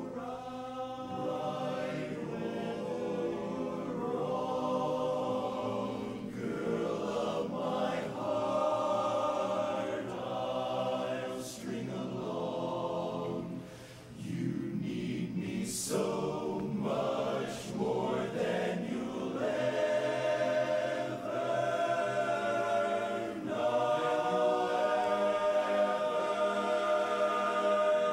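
Large men's barbershop chorus singing a cappella in sustained harmony. The sound thins and dips briefly about halfway through, then swells louder near the end.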